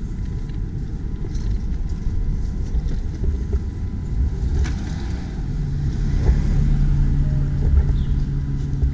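Low rumble of street and vehicle noise, with a steady engine hum setting in about halfway through and holding on.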